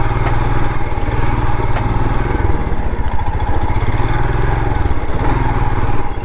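Motorcycle engine running under way on a rough, damaged off-road trail.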